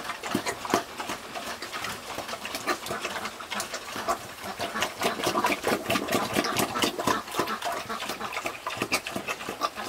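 Pig eating from a feed trough: rapid, irregular chomping and smacking of its jaws in the food.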